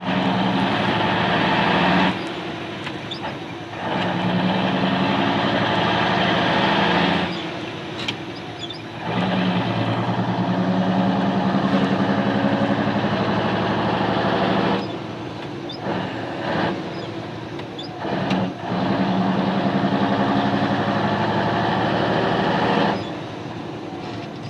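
FNM truck's diesel engine running with an even rumble, held loud for a few seconds at a time and dropping back to a lower, quieter note about four times, at roughly two, seven, fifteen and twenty-three seconds in.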